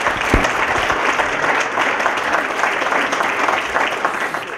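Audience applauding, a dense patter of many hands clapping, which cuts off abruptly at the very end. A single low thump comes about a third of a second in.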